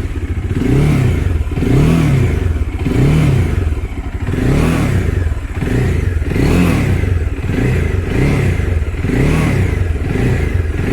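Bajaj Dominar 400's single-cylinder engine revved in short blips, about nine times, each a quick rise and fall in pitch. The blips are a check for the headlight-cover vibration rattle, which now sounds clean after rubber padding was fitted.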